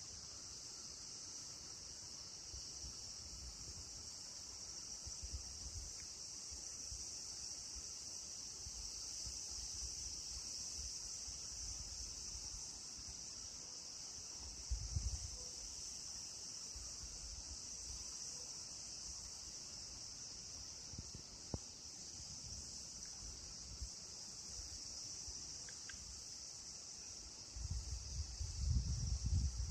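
A steady high-pitched hiss throughout, with low wind rumble on the microphone now and then, heavier near the end.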